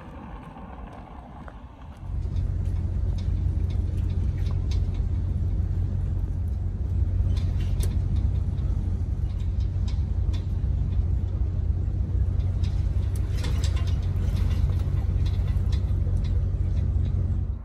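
An engine running steadily at a low, even hum, coming in abruptly about two seconds in, with faint scattered clicks over it.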